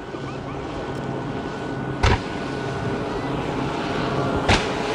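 Fireworks display: a continuous rushing rumble that slowly grows louder, broken by two sharp bangs, one about two seconds in and one near the end.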